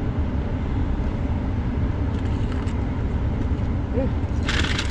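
Steady low rumble of a vehicle running, heard from inside, with a brief rustle near the end.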